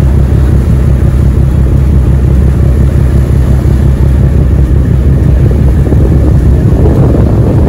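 Steady low rumble on the open deck of a moving passenger ferry: the ship's engine and wind buffeting the microphone.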